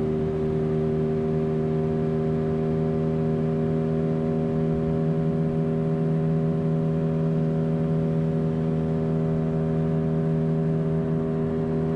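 A 15 hp Yamaha outboard motor running at a steady cruising speed, pushing a small fiberglass boat along, its hum holding one even pitch throughout.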